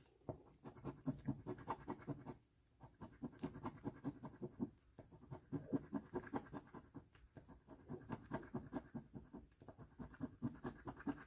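A scratch-off lottery ticket being scratched, the coating scraped off in quick strokes, in several runs broken by short pauses.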